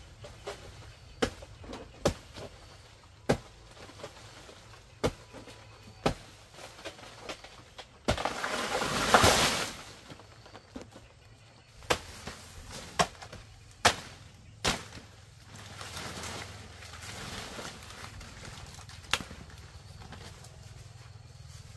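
Repeated sharp chopping knocks, about a dozen, irregularly spaced about a second apart, with a louder rustling crash about eight seconds in that lasts over a second.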